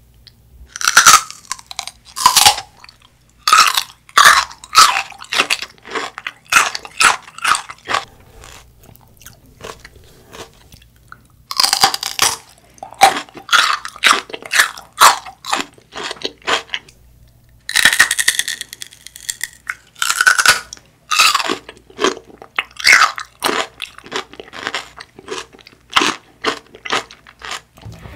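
Crisp bites into a raw celery stalk, each followed by quick, crunchy chewing of the fibrous pieces, in three bouts separated by short pauses.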